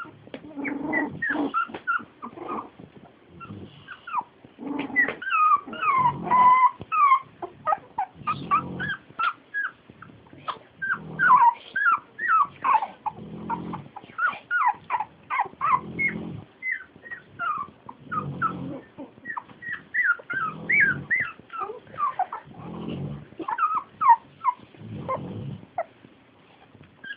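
A litter of Jack Russell terrier puppies whimpering and squealing, many short high cries overlapping. Under them a pig snores in a slow, even rhythm, one drawn-out low snore about every two and a half seconds.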